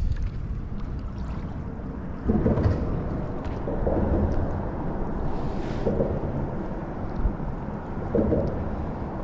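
Wind rumbling on the microphone, with choppy water slapping against the kayak hull in irregular washes.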